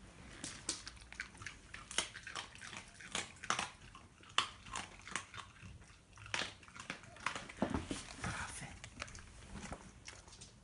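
A Pembroke Welsh corgi chewing and crunching, heard as a quiet run of sharp, irregular clicks.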